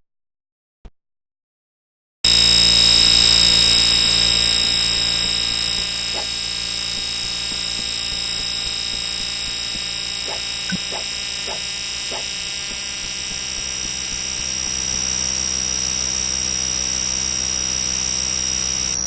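Fire alarm sounder being tested: a loud, steady, high-pitched tone that starts abruptly about two seconds in, holds unbroken without pulsing, and cuts off suddenly at the end.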